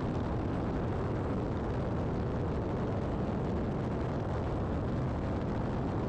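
Steady rush of wind and engine noise from a twin-engine Piper Aztec in flight, as picked up by a camera mounted outside under the fuselage. It is even throughout, with no separate clunks or whines, while the landing gear is lowered on final approach.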